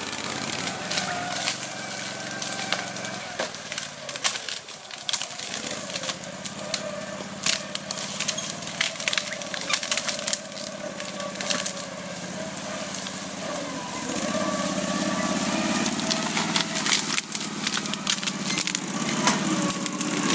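Engine of an Otter/Ferret twin-tracked ATV running under load as it pushes through brush, with many sharp cracks and snaps of branches breaking. The engine note dips about four seconds in and grows louder from about two-thirds of the way through.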